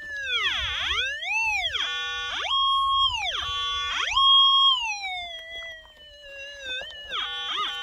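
Minelab SDC 2300 gold detector giving a big target signal: a tone that swoops up and down in pitch as the coil passes over a deep hole, several times reaching and holding its top pitch, then trailing down before a short warble near the end. The prospector suspects the deep target could be a screw or bolt left from a post pulled out there.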